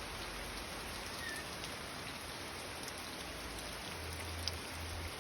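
Steady rain falling, an even hiss with a few sharper drips now and then.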